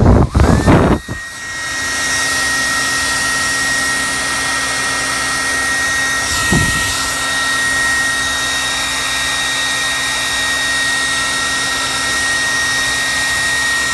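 Handheld hot-air dryer heat-setting the fresh paint on a crankbait. After a few loud knocks in the first second, it comes on about a second and a half in and runs steadily, a rush of air with a thin high whine.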